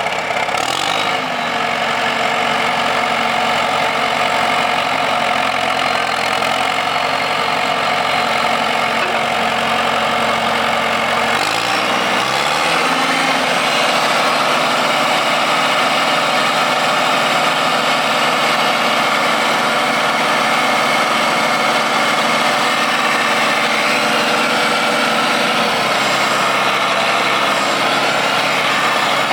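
John Deere 450C crawler loader's diesel engine running steadily, then speeding up about twelve seconds in and holding at a higher, steady speed.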